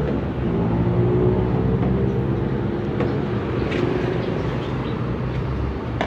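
A motor engine running steadily, its pitch drifting slowly up and down, with a sharp click about halfway through.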